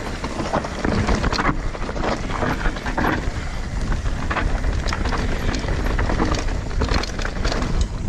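Wind buffeting the microphone over the rumble and rattle of a mountain bike riding down a rough dirt trail, with many short clattering knocks as the tyres hit bumps.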